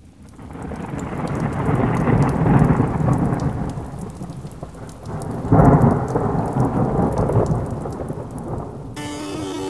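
Thunderstorm: thunder rumbling over steady rain, swelling and easing, with a sharper thunderclap about five and a half seconds in. Music comes in near the end.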